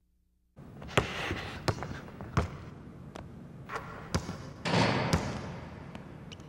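A basketball bouncing on a hardwood gym floor: several sharp, irregularly spaced bounces that start about half a second in, with a short rush of noise around five seconds in.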